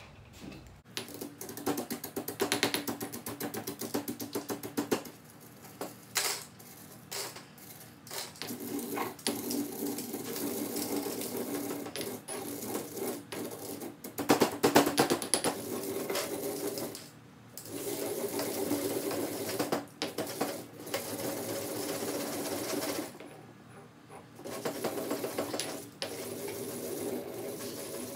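Dry ramen noodles being crushed and ground with a pestle in a stone mortar: rapid crunching and crackling with stone scraping on stone. It comes in several runs broken by short pauses.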